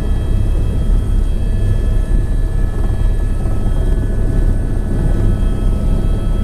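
Tour helicopter in flight: a steady, loud low rotor drone with a thin, constant high turbine whine over it.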